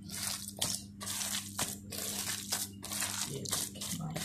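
Bare hands squeezing and mixing grated gourd with gram flour and spices in a plastic bowl for pakoras: a quick, irregular run of crunchy squishes. A steady low hum runs underneath.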